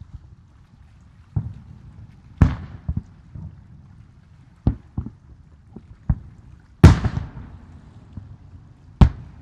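Aerial firework shells bursting in a series of about eight bangs, irregularly spaced. The loudest comes about seven seconds in and trails off with a long fading tail. A low steady rumble runs between the bangs.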